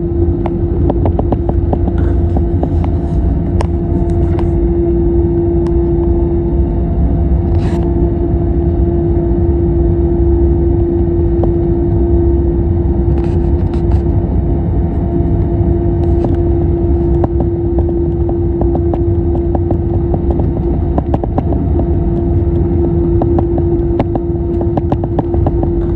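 Airbus A321neo engine and airflow noise heard inside the cabin: a steady low rumble with a constant hum and a few faint clicks and rattles.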